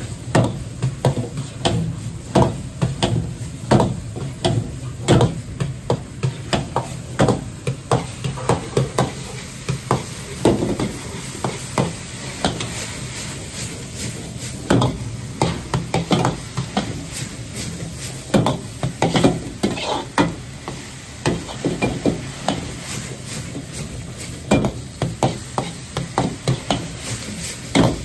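Steel ladle scraping and knocking against a large carbon-steel wok, irregularly about one to two strikes a second, as minced pork is stir-fried and sizzles in the hot pan. A steady low rush from the gas wok burner runs underneath.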